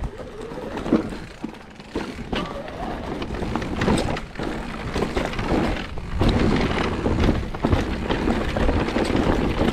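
Mountain bike riding down a rough dirt trail: steady tyre and rolling noise with frequent knocks and rattles from the bike, louder from about six seconds in.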